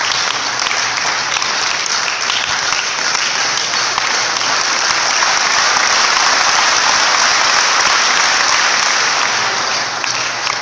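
Audience applauding: dense, even clapping that swells to its loudest in the middle and fades off near the end.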